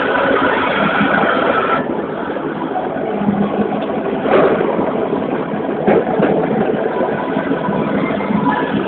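Steady noisy din of a large indoor hall around a wrestling ring. A couple of sharp thuds about four and six seconds in: wrestlers hitting the ring canvas.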